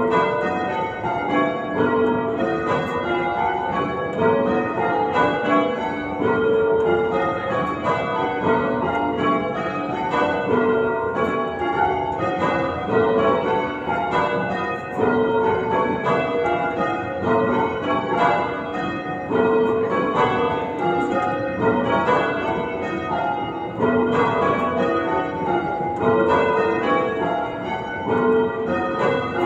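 Church tower bells rung in change ringing: a continuous, evenly paced run of bell strikes, each bell sounding in turn.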